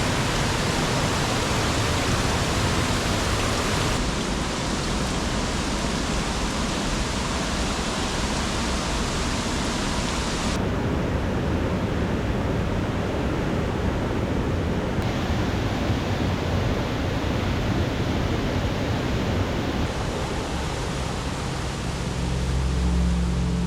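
Rushing water of a high-running mountain stream and its waterfalls, a steady roar of white water whose character shifts abruptly a few times. Music comes in near the end.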